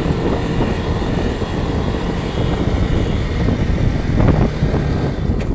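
Bajaj Pulsar RS200 motorcycle riding along at about 40 km/h, heard mostly as a steady wind rush over the handlebar-mounted phone's microphone.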